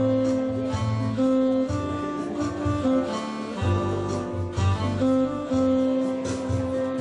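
Instrumental music played live: guitar over a steady bass, with long held melody notes.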